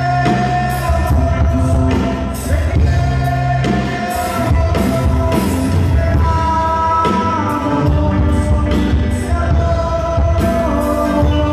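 Live band playing amplified music: drums, electric bass, electric guitars and keyboards carrying sustained melody lines over a steady beat, with a lead singer on microphone.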